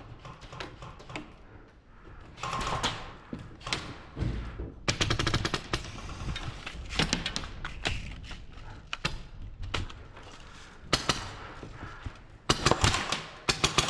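Airsoft guns firing in rapid bursts of sharp shots: a long burst about five seconds in, scattered single shots, and another dense burst near the end.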